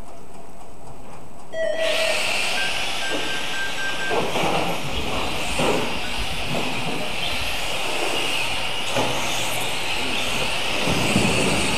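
Several small electric radio-controlled cars driving on a carpet track, making a steady high whine and hiss that starts abruptly a little under two seconds in. A few short knocks are heard within it.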